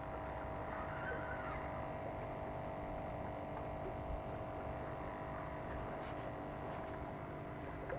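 A steady hum made of several held tones over a low rumble, with no other event in it.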